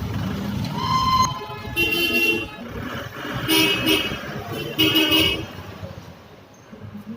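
Vehicle horns tooting four times. The first toot is short; the later ones last up to a second each. Underneath is a low engine rumble that fades near the end.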